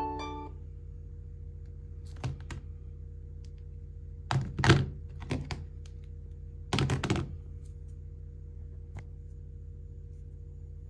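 The last note of a phone ringtone fades at the very start. Then come several clusters of knocks and clicks between about two and seven seconds in, the loudest near five seconds, and one last click near nine seconds, over a steady low hum.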